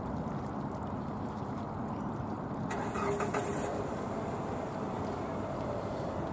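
Jet airliner engines rumbling steadily, with a brief hiss about three seconds in.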